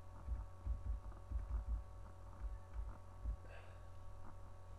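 Steady low electrical hum from the recording setup, with soft, irregular low thumps of keys being pressed on a computer keyboard, bunched in the first three and a half seconds.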